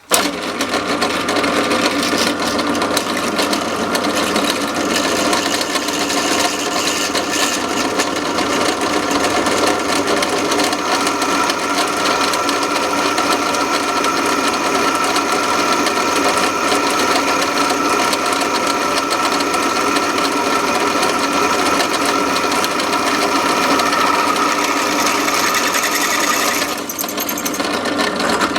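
Large drill press drilling steel: a steady mechanical run with a high, even whine, starting abruptly. Near the end the high hiss drops away and the level dips for a moment.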